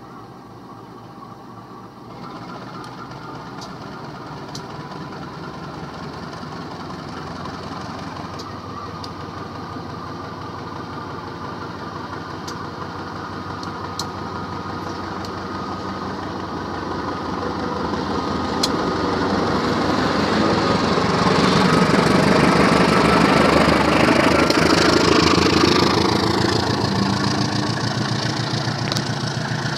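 Diesel locomotive hauling a passenger train pulls away from the station, its engine running steadily and growing louder as it draws near and passes. It is loudest about three-quarters of the way through, then eases as the coaches roll by, with a few sharp clicks along the way.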